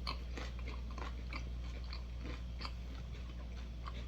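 Close-up mouth sounds of a person chewing fast food, with irregular small crunches and wet clicks, over a steady low hum.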